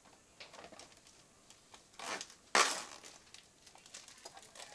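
Plastic film on a plastic tray of ground turkey being handled and pulled open: light rustles and small clicks, with two crackling rips about halfway through, the second sudden and the loudest.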